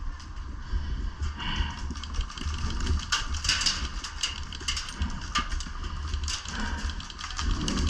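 Wind buffeting on the microphone as a steady low rumble, with irregular clicks, knocks and rustling throughout.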